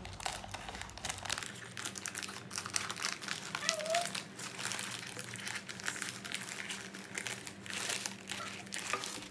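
Scissors cutting through thin colour paper, with the paper crinkling and rustling as it is handled, in dense irregular crackles.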